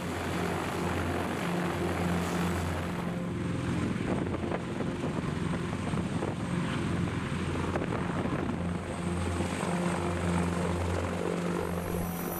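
Sikorsky CH-53K King Stallion heavy-lift helicopter hovering low overhead, its rotor and engines making a steady, loud noise with a low hum underneath.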